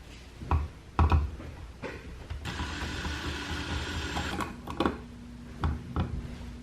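Cordless drill motor running for about two seconds, between a few sharp clicks and knocks of handling.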